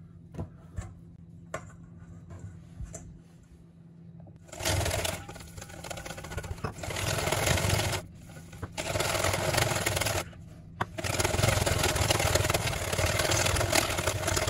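Wire whisk beating fast against a stainless steel bowl, rattling and scraping as it whips an egg-yolk sauce into an emulsion. It is quiet at first with a few light clicks. About four seconds in the fast whisking starts and runs on, stopping briefly twice.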